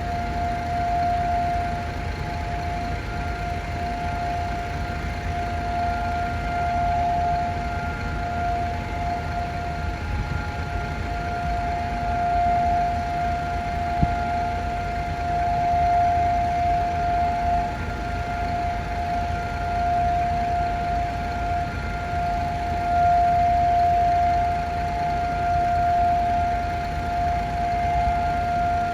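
Civil defense siren holding one long steady tone, its loudness swelling and dipping slightly. This steady tone is Israel's memorial siren for Holocaust Remembrance Day, not the rising-and-falling alert.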